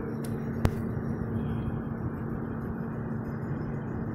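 A vehicle engine idling steadily with a low hum. There is one sharp click about two thirds of a second in.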